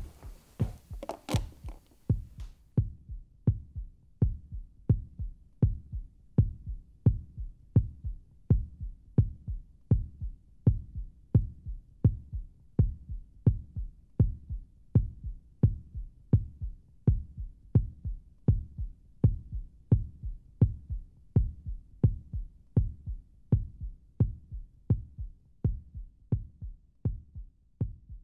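Outro music bed: a regular low thumping beat with alternating strong and weak beats, with a brief bright swish in the first couple of seconds.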